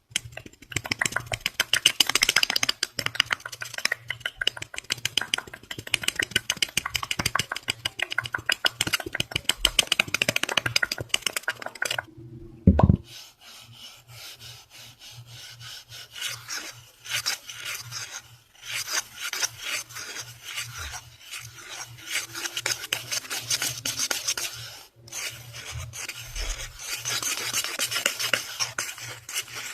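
Fast, rapid scratching and rubbing strokes on a surface, typical of ASMR scratching triggers. About 12 seconds in the scratching stops briefly for a single loud thump, and it pauses again briefly near 25 seconds.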